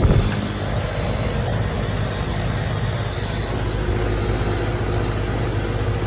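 Carrier outdoor air-conditioner condenser unit running, the compressor and fan giving a steady low hum and whoosh, with the cabinet shaking as it runs.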